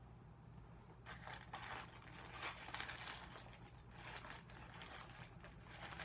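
Rustling, scraping handling noise as a canvas sneaker is turned over in the hands. It comes in two stretches, the first starting about a second in and the second about four seconds in, over a steady low hum.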